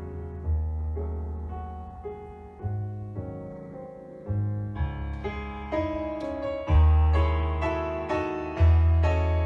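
Piano-sounding keyboard playing slow, unaccompanied chords with a deep bass note struck every couple of seconds; the playing grows fuller and brighter about halfway through.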